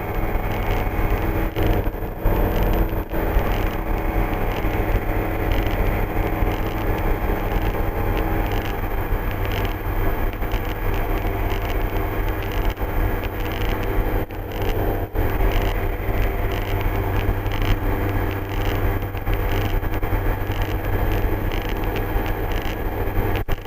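Steady drone of an MD3 Rider ultralight's piston engine and propeller in flight, heard from inside the cockpit.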